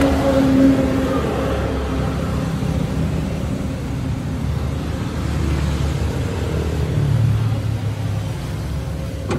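Kubota compact tractor's diesel engine idling with a steady low rumble.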